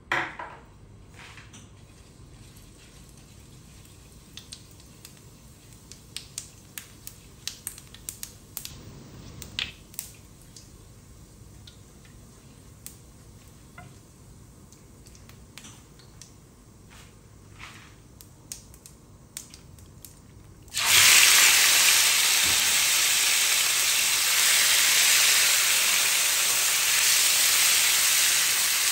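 Faint scattered clicks and scrapes as spice seeds are stirred in hot oil with a silicone spatula. About two-thirds of the way through, raw chicken pieces go into the pan and a loud, steady sizzle of frying starts suddenly.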